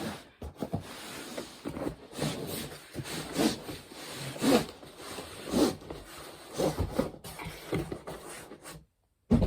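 Cardboard packaging being handled and pulled open, rubbing and scraping in repeated strokes about once a second.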